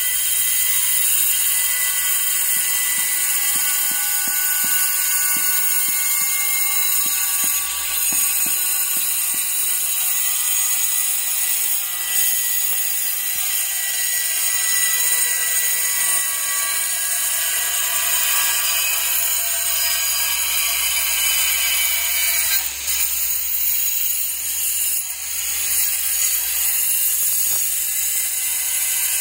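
A steady high-pitched mechanical whine with several fixed tones runs throughout. Between about three and nine seconds in, a run of soft knocks is heard, fitting a rubber mallet tapping a floor tile down into its mortar bed.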